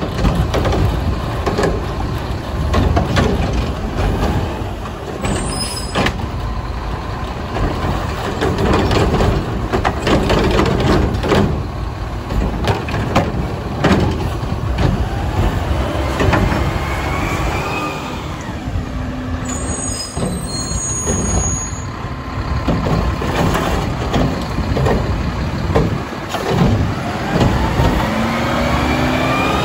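Mack LEU garbage truck with a McNeilus Contender front-loader body working its route: the diesel engine runs under many metallic clanks and knocks, and twice rises in pitch as it revs.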